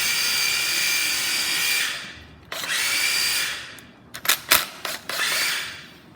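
Makita GA027G 40V cordless angle grinder running with no load: a steady high whine that is switched off and winds down, runs again briefly and winds down, then a few sharp clicks before one more short run that fades out.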